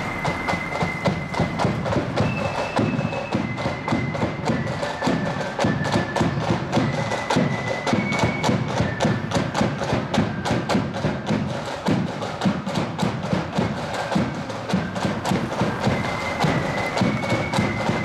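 Marching band playing: a high, stepping melody over rapid, steady drum strokes.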